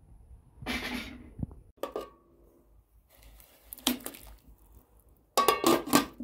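Metal pots and lids being handled: a ringing clink about two seconds in, a soft hiss while salt is poured into boiling water, then a loud rattling clatter near the end as the enamel lid is set down on the pot.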